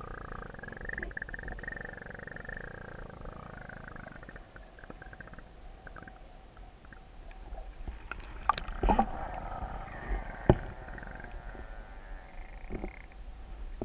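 Muffled underwater noise heard through a GoPro's waterproof housing: a low rumble with a faint wavering whine, and a few sharp knocks from about eight seconds in.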